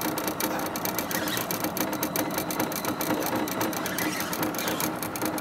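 A steady, fast mechanical rattle, like a small machine running.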